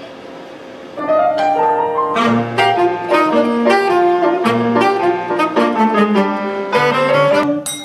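Small jazz band playing live: a saxophone plays quick, short-noted phrases over piano and low bass notes, starting suddenly about a second in after a quiet pause.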